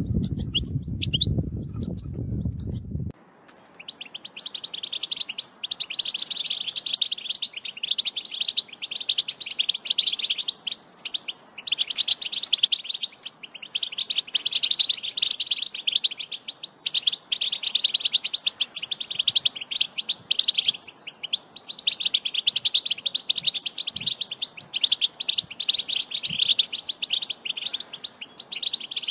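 European goldfinch twittering: fast, tinkling chatter in phrases a few seconds long, with short pauses between them. For the first three seconds a low rumble lies under scattered chirps and then cuts off suddenly.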